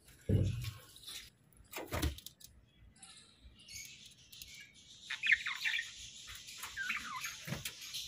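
Hagoromo budgerigars chattering, a run of quick high chirps from about halfway through. A couple of dull thumps come near the start and another near the end.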